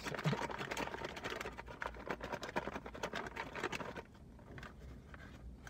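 A closed bag holding a sauced chicken patty being shaken hard, rustling and crinkling rapidly; the shaking stops about four seconds in, leaving only a few quieter rustles.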